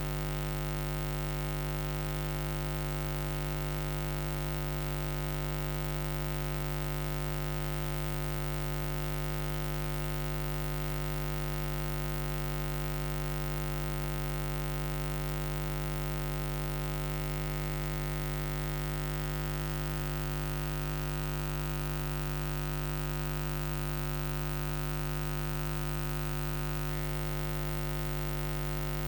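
Steady electrical mains hum with many overtones over a constant hiss, unchanging throughout. It is interference with no other sound: the recording's real audio has not yet begun.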